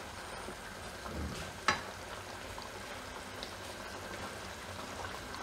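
Thin ridge gourd and patra curry simmering in a non-stick pan, a steady bubbling hiss, while a steel ladle stirs through it. The ladle clicks sharply against the pan once, a little under two seconds in.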